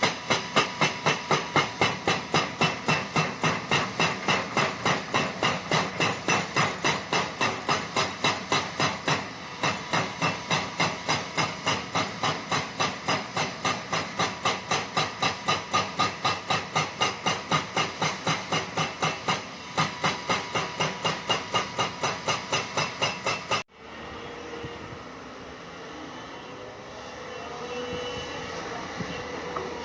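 Hydraulic rock breaker on a Hyundai excavator hammering limestone in a fast, even run of blows, with two short pauses. About 24 seconds in the hammering stops suddenly, leaving the excavator's engine running steadily.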